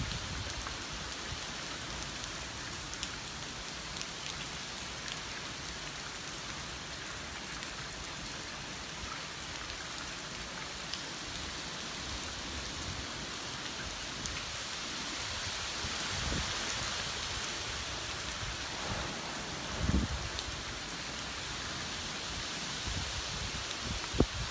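Heavy typhoon rain falling in a steady hiss that swells a little past the middle, with a short low rumble about twenty seconds in and a sharp click near the end.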